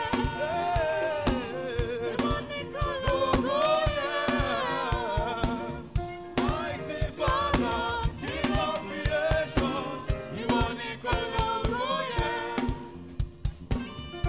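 Gospel praise song: voices singing together, led by a lead singer, over a steady drum beat. Near the end the singing thins out and the band carries on.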